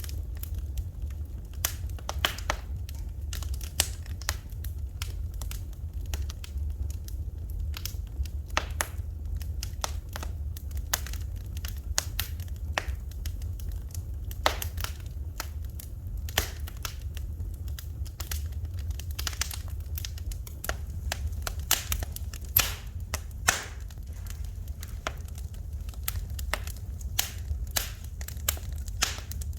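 Wood fire in a fireplace crackling: frequent, irregular sharp pops and snaps over a steady low rumble.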